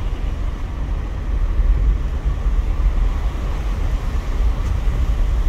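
Steady low rumble of strong hurricane wind buffeting the microphone at a car's open window, mixed with the car's road noise as it rolls slowly along.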